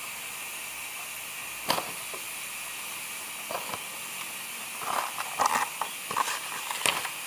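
Slime being squeezed and stretched by hand: scattered short clicks and squelches, one about two seconds in and a cluster of them near the end, over a steady hiss.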